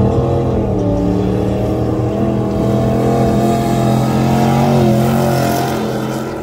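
Drag race car's engine running hard at high revs down the strip, its pitch dipping briefly a few times, then fading as it pulls away near the end.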